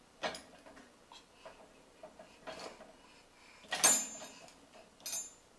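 Dishes and cutlery clinking and clattering as they are handled out of a dishwasher: four separate knocks, the loudest about four seconds in with a short ringing tail.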